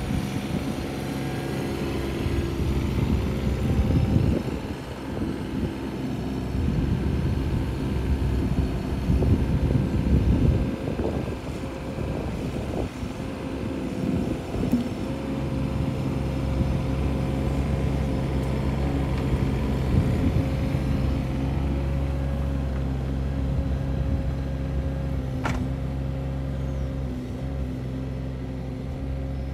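Bobcat 319 mini excavator's diesel engine running steadily under the operator's control. Irregular knocks and surges in roughly the first half as the wood grabber sets a log on the stack, then steadier running; one sharp click about 25 seconds in.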